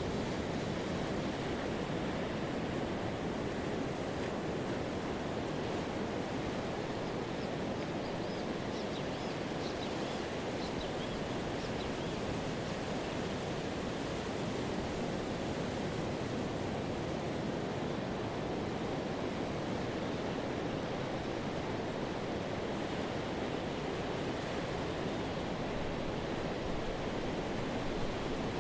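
Pacific surf breaking and washing up a sandy beach: a steady, even rush of waves with no single crash standing out. A few faint high chirps sound about a third of the way in.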